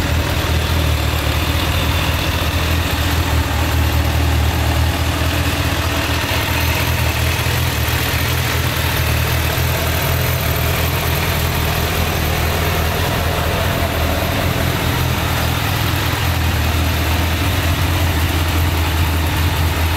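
Suzuki Bandit 1200's air/oil-cooled inline four-cylinder engine idling steadily.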